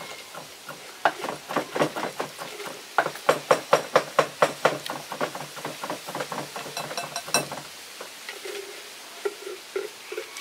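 A quick run of clinks and knocks from a kitchen utensil striking kitchenware, as in stirring or working something in a bowl. The strikes come about four or five a second, are densest a few seconds in, and stop about seven and a half seconds in.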